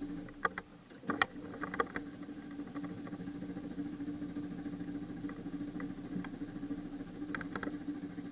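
Renault car engine being cranked by its starter motor, a steady hum that keeps going for about eight seconds without the engine starting: a hard start. A few sharp clicks come about a second in and again near the end.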